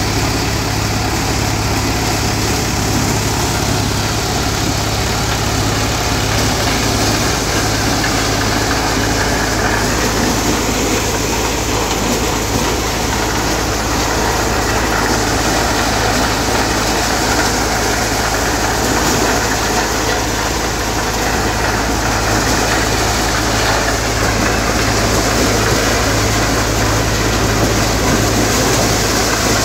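Steady, unbroken running of a Hindustan 60 tractor's diesel engine powering a belt-driven multicrop thresher as it threshes maize cobs.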